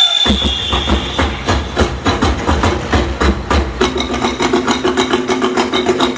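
Fireworks going off in a rapid barrage of sharp bangs and crackles, several a second, with a deep rumble underneath; steady musical tones join in about four seconds in.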